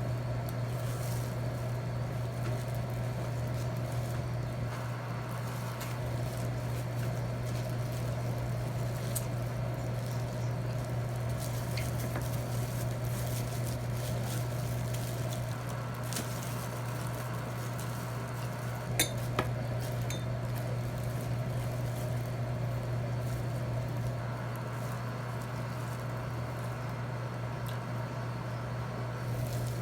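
Cutlery clinking now and then against a plate, with two sharper clinks close together about two-thirds of the way through, over a steady low hum.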